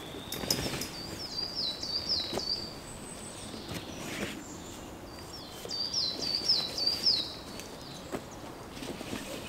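A small songbird singing twice, each phrase a run of six or seven high, falling notes, over a steady outdoor rustle and a few soft knocks of gear being handled on dry leaves.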